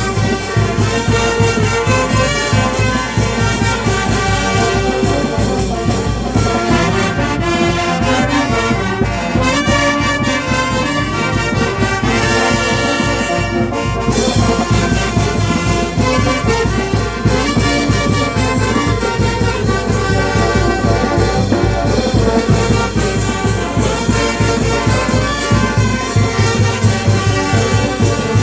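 Andean filarmónica brass band playing festival music, brass over a steady low drum beat, with a held chord about halfway through.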